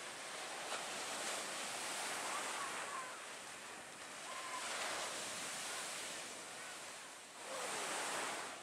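Ocean surf breaking and washing in over shallow water. The rush of the waves swells and eases several times, with a strong surge near the end.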